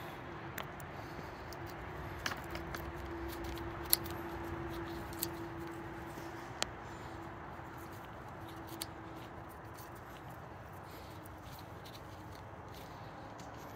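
Scattered sharp metallic clicks from handling a flaring tool's clamp on copper refrigerant tubing, over a steady faint hum that fades out after about eight seconds.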